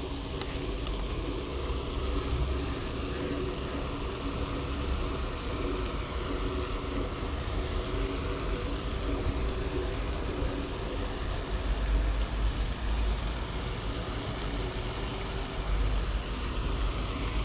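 Wind buffeting the microphone in uneven gusts, over a steady low hum of distant town traffic.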